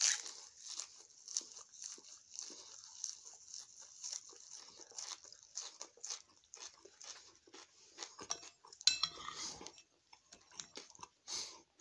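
A man chewing and crunching fresh parsley, with many short, irregular wet clicks. About nine seconds in, a spoon scrapes and clinks in a ceramic bowl in a quick run of clicks.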